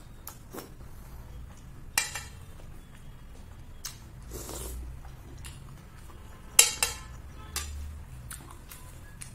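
Metal spoon clinking against a ceramic dish: one ringing clink about two seconds in, then a louder double clink later, with a few lighter taps and soft eating sounds in between.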